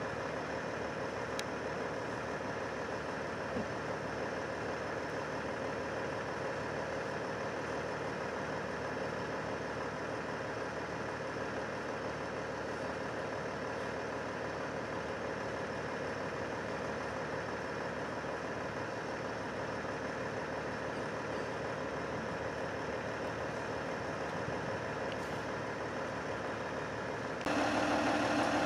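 Fire engine's diesel engine idling steadily, getting louder about a second before the end.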